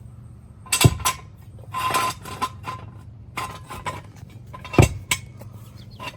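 Metal clanking and clattering of jacking gear being handled under a car, with two sharp heavy knocks, about a second in and near the five-second mark.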